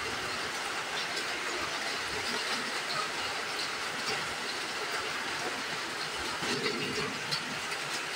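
Steady hiss of rain.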